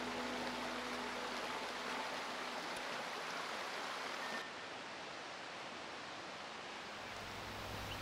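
A shallow, fast-flowing river rushing over stones, a steady rush of water that drops a little in level about halfway through.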